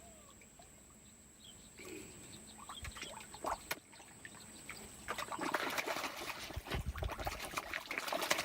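Pond water splashing and crackling as fish and softshell turtles snatch food at the surface. It is sparse at first and turns into busy, louder splashing from about five seconds in.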